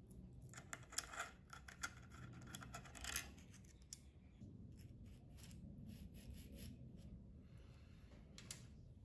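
Faint small metallic clicks and light scrapes from an Allen key and small aluminium parts being handled as positioning bars are unscrewed from a mitre gauge fence. The clicks come mostly in the first three seconds.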